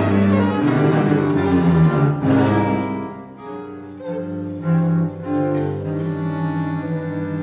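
Violin and cello playing a modern classical chamber duo passage: quick, shifting notes for about three seconds, then slower held low notes, the lowest one pulsing in the last couple of seconds.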